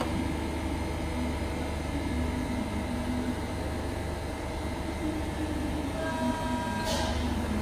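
Hydraulic pump of a Steelmaster 90-ton CNC press brake running with a steady low hum between bends. About six seconds in, a brief higher whine ends in a click as the machine moves to its next position.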